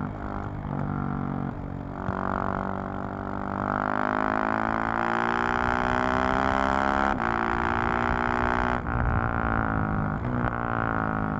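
KTM 690 SMC-R single-cylinder engine through its exhaust, pulling hard with the pitch climbing, a quick gear change about seven seconds in, then easing off with the pitch falling near the end.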